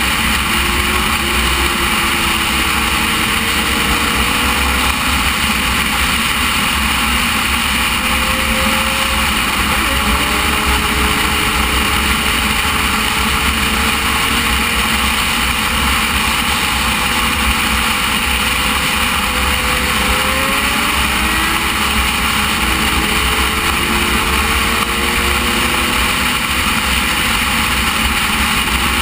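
Motorcycle ridden at road speed: steady, loud wind rush over the camera microphone, with the engine note faintly underneath, its pitch drifting slowly up and down with the throttle.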